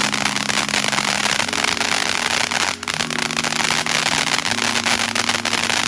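Consumer fireworks crackling continuously: a dense, rapid crackle with one sharper crack about three seconds in.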